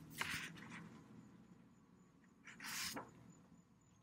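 Two short, faint breaths, one at the start and a slightly louder one about three seconds in, over quiet room tone.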